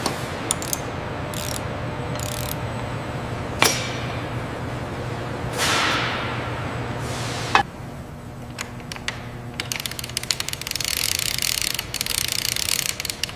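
Metal clanks over a steady machinery hum, with two sharp clanks a few seconds apart and a falling whoosh between them. From about eight seconds on, a fast clicking, ratcheting rattle.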